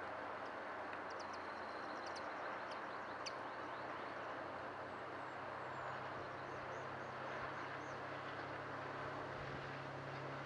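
Steady rumble of a distant train running, with a low engine hum under it. Faint high chirps of small birds come in the first few seconds, and a short run of repeated high notes follows a little past halfway.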